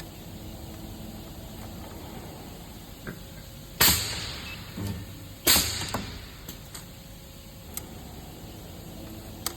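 Projection welding machine cycling: two sudden bursts of noise about a second and a half apart, each fading over about half a second, with a few faint clicks between them.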